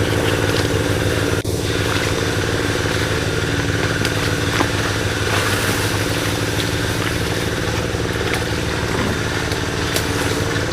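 Small engine driving a water pump, running steadily as it pumps water out of the canal. There is a short click and a brief dip in level about a second and a half in.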